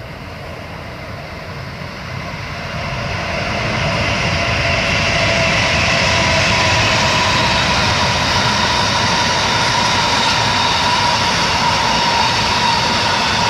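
Freight train of empty steel-slab wagons hauled by two coupled BB 27000 electric locomotives passing, growing louder over the first few seconds and then steady. Steady high-pitched tones ring over the rumble of the wheels.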